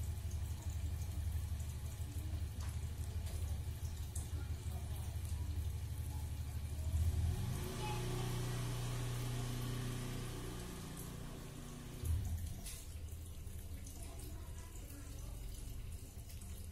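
A cat licking and chewing beef sausage, with wet smacking mouth sounds, over a steady low hum.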